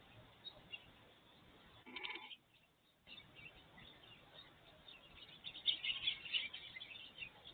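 Small birds chirping in a busy flurry of short, high calls in the second half, with a single bleat from a farm animal about two seconds in.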